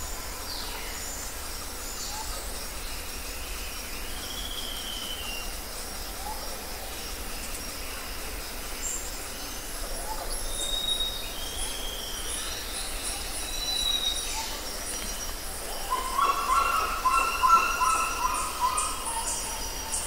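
Scattered bird calls: short whistled notes and sliding whistles. From about three-quarters of the way through comes a run of louder, high-pitched, wavering squeals, the loudest sound here.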